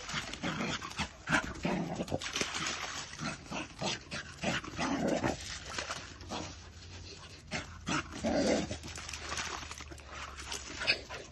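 A dog splashing and wading through a shallow muddy creek in irregular short splashes, with a few brief dog vocal noises in between.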